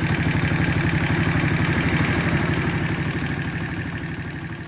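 Small 50cc single-cylinder motorcycle engine idling steadily, very quiet, with no cam-chain knock now that the loose timing chain has been shortened and its tensioner adjusted. The sound fades away toward the end.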